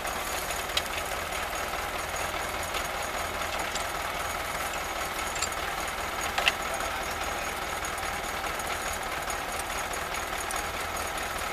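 Farm tractor engine running steadily, with a couple of short sharp clicks, about a second in and again past halfway.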